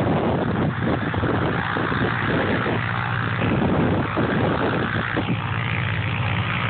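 North American T-6 trainer's Pratt & Whitney R-1340 nine-cylinder radial engine running steadily on the ground, its propeller turning, heard from across the field.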